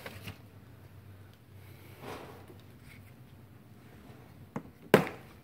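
Handling noise from a spot welder's power cord: faint rustling, a small click, then one sharp knock near the end.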